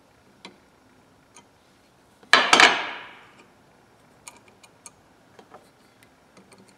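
Steel parts of a pair of Matco oil filter pliers being handled and fitted together: a few light metal clicks, then a loud metallic clank that rings briefly about two seconds in, then more small clicks as the pieces are worked.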